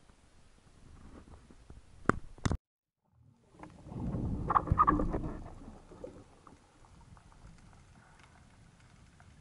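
Underwater sound picked up through a camera housing: two sharp clicks, then a muffled swell of water noise that peaks and fades into quiet underwater background with faint crackling ticks.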